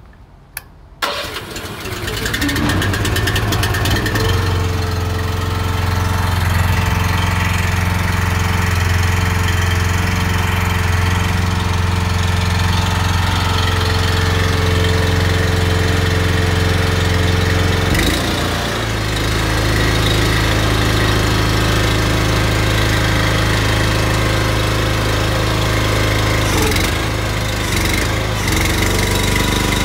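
Engine of a brick paving machine starting about a second in, then running steadily. About eighteen seconds in, the pitch of its running shifts.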